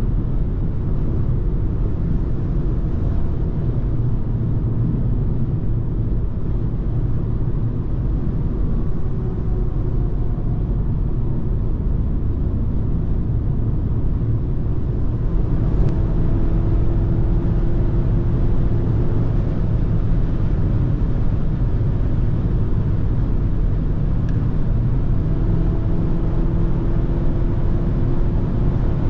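Inside the cabin of a BMW X2 xDrive20i at high Autobahn speed: a loud, steady rumble of tyre and wind noise with the engine running under it. A faint engine tone comes in about halfway through and again near the end.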